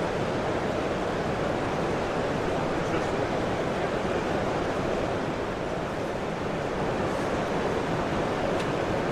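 Steady murmur of a large, crowded exhibition hall: many distant voices blurred into one even noise, with no single voice standing out.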